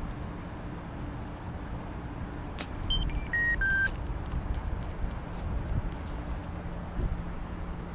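Wind buffeting the microphone with a steady low rumble, broken about two and a half seconds in by a quick run of electronic beeps at several stepped pitches, then a few short, high single beeps.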